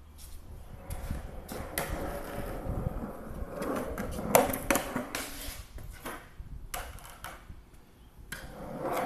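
Skateboard wheels rolling over a concrete floor, with several sharp clacks of the board; the loudest clack comes about four and a half seconds in. The rumble fades a couple of seconds before the end, then picks up again.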